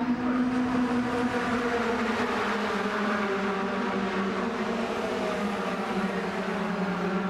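Racing pickup trucks' engines running at speed on an oval circuit, a steady loud drone whose pitch shifts slowly.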